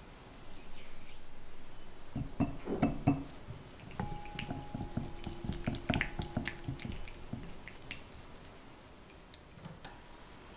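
Whisk beating egg yolks in a glass mixing bowl: quick, wet strokes that knock against the glass at about four a second and set the bowl ringing faintly, then ease off near the end.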